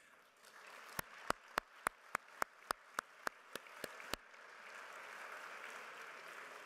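Audience applauding, with one person's loud hand claps close to the microphone on top: about a dozen sharp claps, roughly three a second, from about a second in until just past four seconds. The crowd's applause carries on after the close claps stop.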